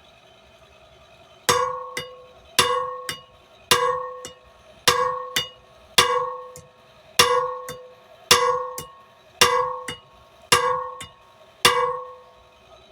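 Hand hammer striking on an anvil, flattening steel stock: ten heavy ringing blows about one a second, starting a second and a half in, each followed by a lighter tap.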